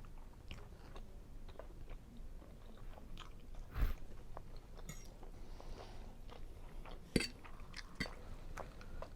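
A person chewing a mouthful of seafood linguine Alfredo close to the microphone: soft wet smacks and mouth clicks, with a sharper smack about four seconds in and another about seven seconds in.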